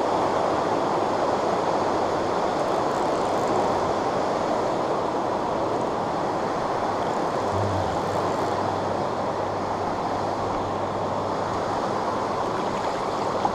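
Steady rushing of a fast, shallow stream's current running over rocks.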